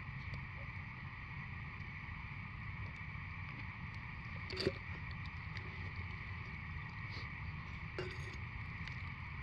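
Two sharp knocks from a thermos and its cup being handled, a louder one about halfway through and a fainter one near the end, over a steady low background hum.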